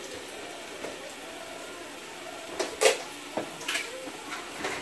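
A steady low background hiss, then a handful of sharp clinks and knocks of pots and utensils starting between two and three seconds in.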